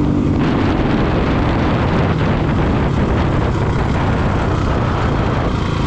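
Honda CRF450R dirt bike's single-cylinder four-stroke engine running under way, mixed with loud wind noise on the microphone.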